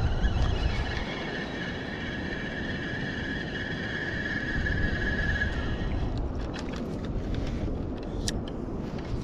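Shimano Sedona spinning reel being cranked, a steady whir that stops about five and a half seconds in, followed by a few sharp clicks as the reel is handled. Wind rumbles on the microphone.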